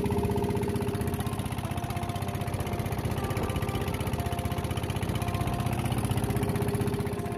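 Small boat engine running steadily, with fast even firing pulses.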